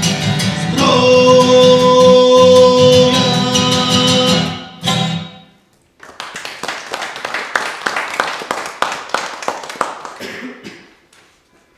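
A man sings the last held note of a song over a strummed acoustic guitar, which rings out and stops about five seconds in. After a moment's silence, an audience applauds for about five seconds, and the applause dies away near the end.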